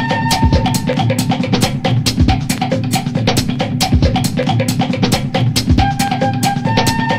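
Background music with a steady drum-kit beat, about four hits a second, and a short held melodic phrase near the start and again near the end.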